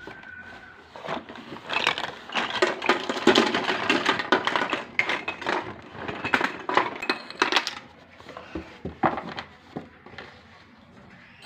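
Hard plastic toy kitchen pieces (play fruit, plates, cutting board) clattering and knocking together as they are handled, mixed with the crinkle of crumpled paper lining being pulled from a cardboard box. The clatter and rustle are densest in the middle and thin to scattered clicks near the end.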